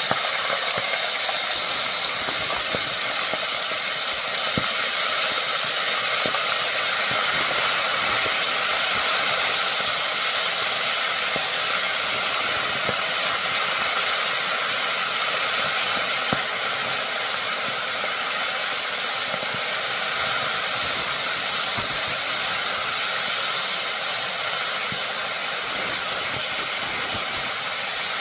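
Flour-coated chicken livers deep-frying in hot oil: a steady, vigorous sizzle with scattered small pops, easing slightly toward the end. The cook says the grease was too hot.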